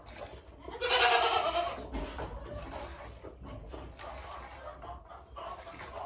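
A goat bleating once, about a second in.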